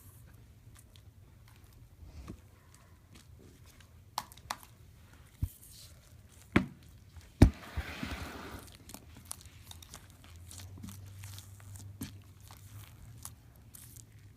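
Foam slime being squeezed and played with by hand, giving scattered crackling clicks and pops, the loudest about halfway through, followed by a short crinkly rustle.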